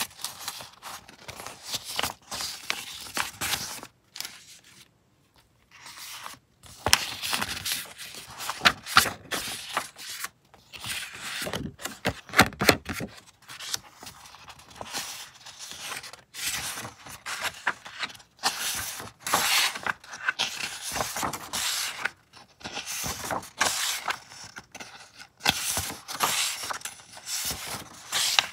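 Loose sheets of paper (old book pages and printed scrapbook paper) rustling, crinkling and sliding against each other as they are leafed through and laid down one by one, with a short pause about four seconds in.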